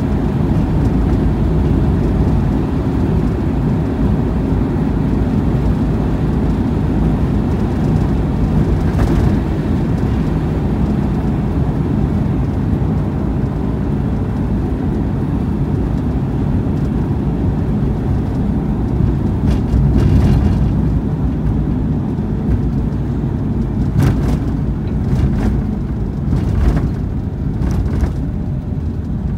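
Steady low rumble of a moving car's engine and tyres, heard from inside the cabin, with a few short knocks in the last ten seconds.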